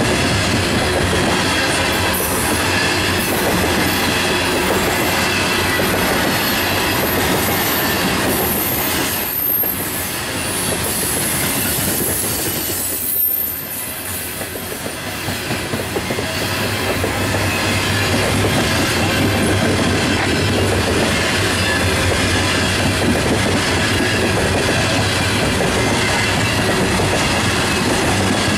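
Coal hopper cars of a freight train rolling past close by: steady wheel-on-rail noise with clicking over the rail joints and a thin, high wheel squeal through the first half. The noise eases briefly twice near the middle.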